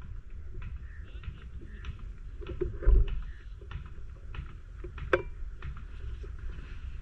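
Low wind rumble with one dull, heavy thump about three seconds in, the loudest sound, and a sharp metallic click about two seconds later; the thump is a PCP air rifle firing a slug.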